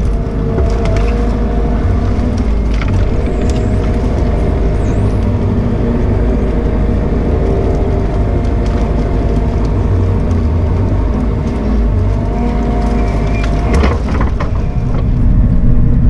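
Bobcat E42 mini excavator running under work as its bucket and thumb grab and drag felled trees: a steady engine drone with a whine that shifts slightly in pitch as the arm moves. A short clunk comes about two seconds before the end.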